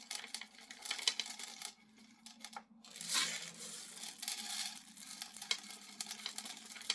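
Steel BBs being poured into the BB reservoir of a Crosman M4-177 air rifle, a dense rattle of many small clicks, with a short lull about two seconds in.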